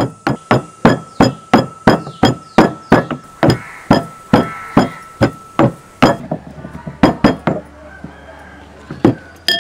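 Stone pestle pounding in a heavy stone mortar, a steady beat of about three sharp strikes a second, turning to a few lighter, quicker taps about six seconds in before it stops. A single sharp knock comes near the end.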